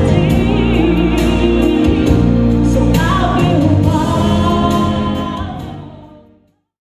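A song: a singing voice over musical accompaniment, fading out near the end.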